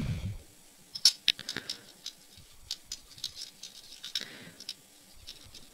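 Small plastic parts of a 1/144 Gunpla model kit being handled and fitted together: a scatter of light plastic clicks, taps and scrapes as a connector piece is pushed into place, the sharpest click about a second in.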